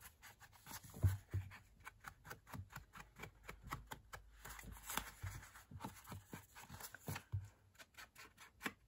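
Ink sponge dauber dabbed and rubbed along the edges of a sheet of paper, with the paper rustling in the hands: a faint run of quick irregular taps and scratchy ticks. A couple of soft low thumps come about a second in and again near the end.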